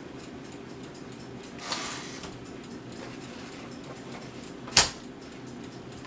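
Smith-Corona Corsair Deluxe portable manual typewriter working: faint clicking, a brief ratcheting sweep about two seconds in, and one loud, sharp clack near the end.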